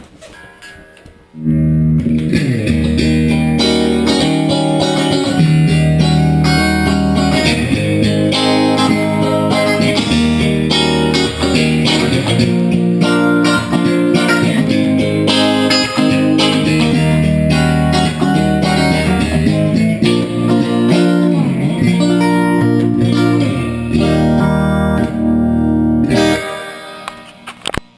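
Electric guitar played through a Fender Twin tube amp, a run of chords and single notes that starts about a second and a half in and stops shortly before the end, with a few brief breaks between phrases.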